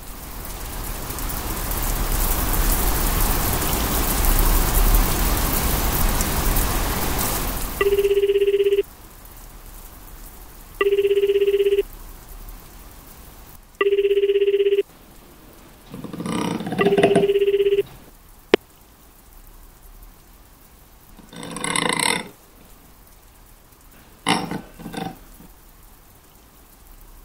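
Steady rain noise for the first eight seconds or so, then a telephone rings four times, each ring about a second long and about three seconds apart. Another short noise overlaps the last ring, a single sharp click follows, and a few brief rustling noises come after it.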